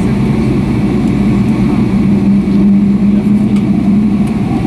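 Boeing 757-200 airliner taxiing, heard inside the passenger cabin: a steady engine hum over a low rumble.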